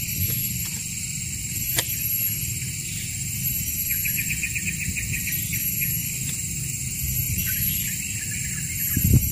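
A razor blade cuts through a durian scion's woody stem with one sharp click about two seconds in. A steady low rumble and a high steady hiss run underneath, a short rapid trill comes in about four seconds in, and a dull thump is the loudest sound near the end.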